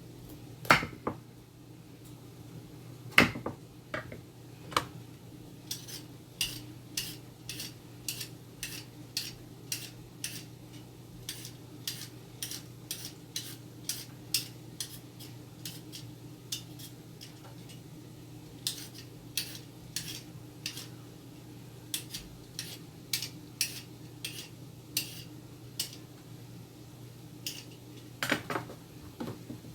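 Kitchen utensils and dishes knocking and clinking: a couple of louder knocks in the first few seconds, then long runs of evenly spaced sharp taps, about two a second.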